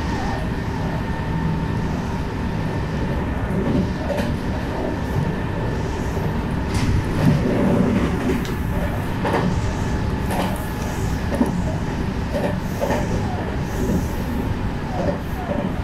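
Meitetsu electric train running, heard from inside just behind the driver's cab: a steady rumble with wheels clicking over rail joints now and then. An oncoming train rushes past about seven to eight seconds in.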